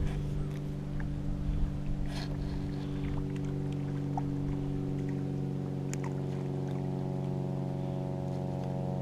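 A steady motor drone holding one constant pitch, with a few faint clicks over it about two and six seconds in.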